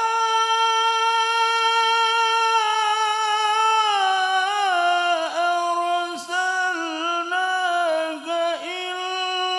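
A man's voice chanting a Qur'an verse in melodic tajwid recitation. He holds one long, high note for about four seconds, then steps down a little and ornaments the line with quick dips and turns.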